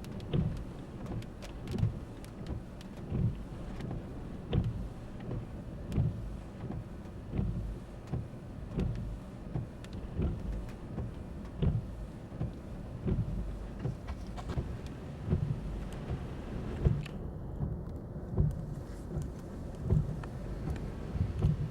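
Rain pelting a vehicle while driving, with scattered sharp drop hits and a low thump repeating about every second and a half.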